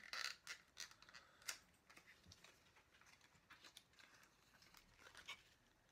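Faint, scattered light clicks and rustles of a small cosmetics box being handled and opened.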